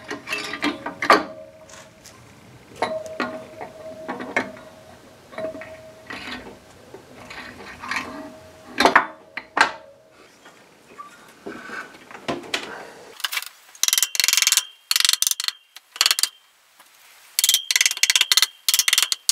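Metal clinks and knocks, some with a brief ring, as lifter trays are set onto an aluminium cylinder head. From about two-thirds of the way in, a socket ratchet clicks in quick repeated bursts as the nuts are run down.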